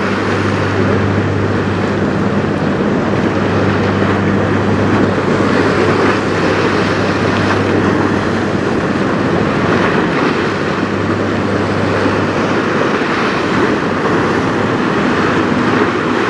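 Wind buffeting the microphone over choppy river water, with a steady low mechanical hum underneath.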